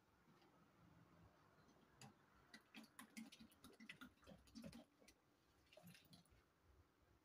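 Near silence, with faint scattered clicks and small knocks through the middle seconds from a wooden stick stirring liquid in a plastic basin as water is poured in from a plastic jerrycan.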